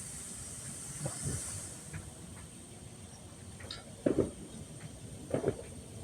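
Small fireworks going off: a faint bang about a second in, then two louder bangs about four and five and a half seconds in, over a steady hiss.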